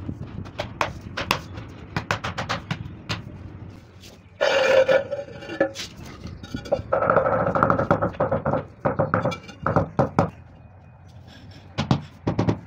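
A mallet knocking a marble floor slab down into its mortar bed: a run of quick, sharp taps, then two longer rough scraping stretches in the middle, then more taps, with two last knocks near the end.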